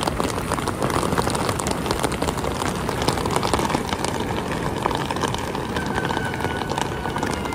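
Heavy rain falling on a van, heard from inside: a dense, steady patter of drops over a constant rushing hiss.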